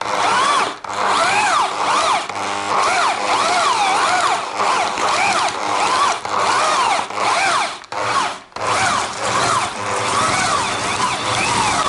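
Electric drill turning a cast-iron hand meat grinder as it grinds garlic scapes. The motor whine keeps rising and falling in pitch as the speed changes under the load, with brief stops about a second in and twice around eight seconds.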